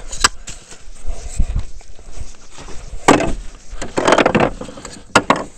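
Rustling handling noise with a few sharp clicks and knocks.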